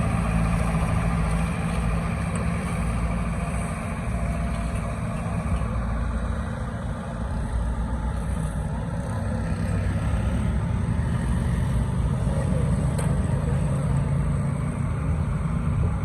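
Heavy engine of road-works machinery running steadily at a low, even pitch.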